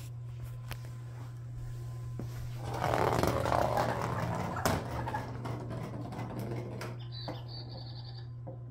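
Electronic cat toy ball running across a wooden floor: a steady motor hum, a louder rattling stretch about three seconds in, and a run of short high squeaks near the end.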